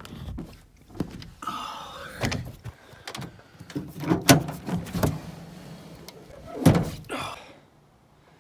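Truck camper door latch clicking and the door being opened, followed by a series of knocks and thuds, the loudest about four seconds in and again near seven seconds, with short bursts of rustling between them.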